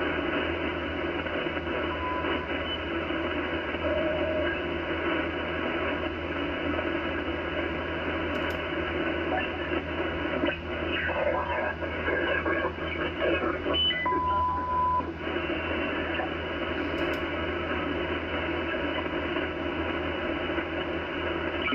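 Icom IC-756PRO HF transceiver receiving 40-metre lower sideband while its VFO is tuned across the band: steady static and band noise, with snatches of garbled, mistuned sideband signals and short heterodyne whistles, the longest lasting about a second about two-thirds of the way through.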